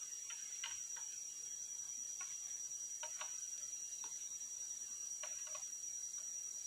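Quiet forest ambience: a steady high insect drone with scattered faint clicks and ticks.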